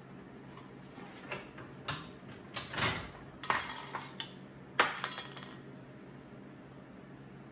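Light metallic clinks and knocks as a license plate bent around an aluminium can is worked loose from a wooden-jawed bench vise and handled, several sharp knocks in the middle seconds, the loudest about five seconds in.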